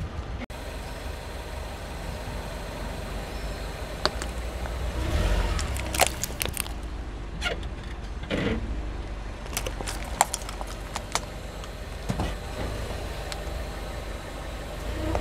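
Car rolling slowly over asphalt toward the microphone, engine running low, with scattered sharp clicks and cracks from under the tyres.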